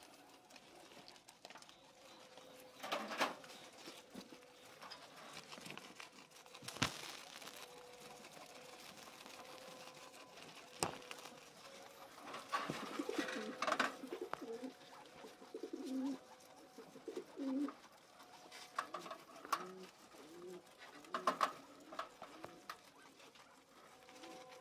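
Soft, low cooing calls repeated about twice a second in the second half, among a few sharp clicks and brief rustles of grass and wire cage being handled.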